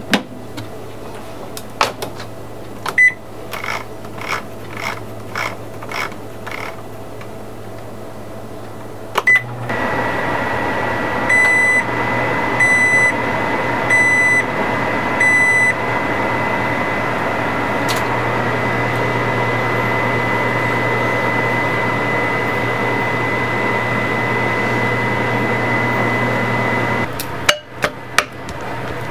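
Sharp microwave oven: a string of about seven short beeps as its buttons are pressed, then the oven runs with a steady hum and a fixed whine for about seventeen seconds, with four short beeps a couple of seconds into the run. It stops near the end, followed by several sharp clicks and knocks.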